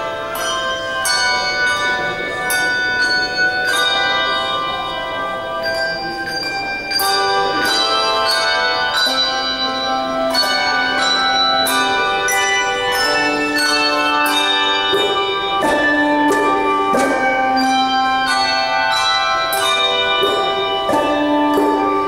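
Handbell choir playing a piece: many handbells struck together in chords, their ringing tones overlapping and sustaining between strikes, with new chords about every half second and some lower bells held for a second or more.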